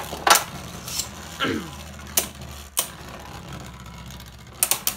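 Two Beyblade spinning tops spinning in a plastic stadium bowl, with a steady low whir and a few sharp clacks as they strike each other or the stadium wall.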